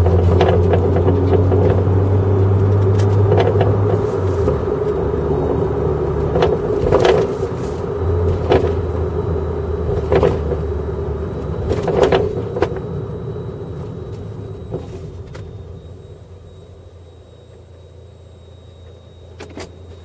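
Inside a Toyota JZX100, recorded at the rear with the seat and trim removed: a steady low road-and-drivetrain drone with sharp knocks every second or two, coming from the rear Öhlins PCV coilover's pillow-ball upper mount, which has failed. The drone fades away over the last several seconds, with one more knock near the end.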